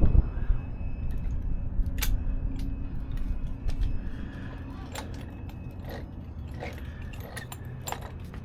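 Scattered light clicks and rattles of small parts as a hobby RC truck's front drivetrain is handled and turned while checking for a lost drive pin, over a low rumble that fades about halfway through.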